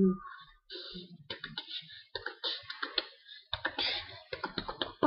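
Irregular clicking and tapping, a quick uneven run of short sharp clicks.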